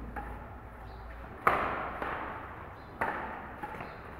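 Badminton rally: racket strings hitting the shuttlecock about every second and a half, three sharp pings, each followed by a short ringing echo.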